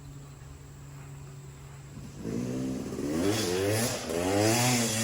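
Two-stroke motocross bike engine running low and steady, then revving hard from about two seconds in, its pitch rising and falling several times as it accelerates.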